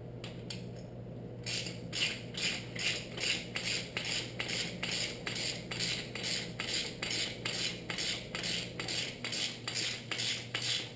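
Ratchet wrench being worked back and forth to loosen a bolt: a steady run of short, rasping clicking strokes, about three a second, starting after a second or so.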